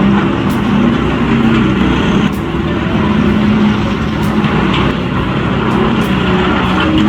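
A heavy machine's engine running steadily under load, with a few faint sharp ticks.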